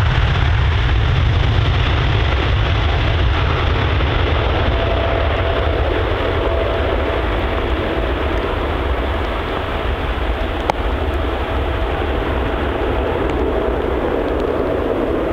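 GE90 turbofan engines of a Boeing 777 running at takeoff thrust during the takeoff roll: a loud, steady noise with a deep rumble underneath and spray hissing off the wet runway. A faint steady whine runs through the middle, and there is one sharp click about two-thirds of the way through.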